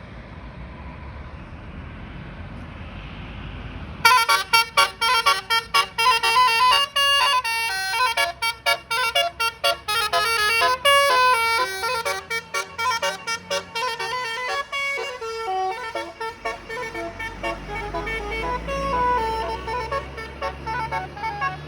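Tour bus's multi-tone 'telolet' (Basuri) horn playing a fast melody of short stepping notes, starting suddenly about four seconds in over low engine noise. Near the end the notes come slower and lower over a low engine rumble.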